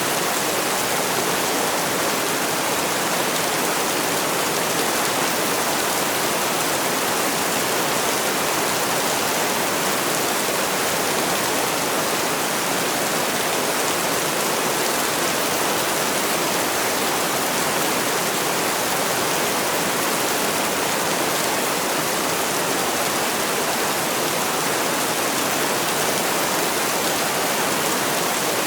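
Heavy rain falling steadily, a dense even hiss without any single drops or thunder standing out.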